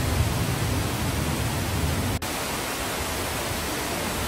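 Water spilling over a low concrete weir into a pool: a steady rushing noise, broken for an instant about two seconds in.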